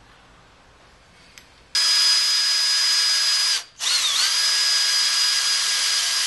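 Cordless drill boring a hole into a motorcycle swing arm, sized for a rivet nut. It starts about two seconds in, stops briefly just before halfway, and restarts with a short dip in pitch before running steadily.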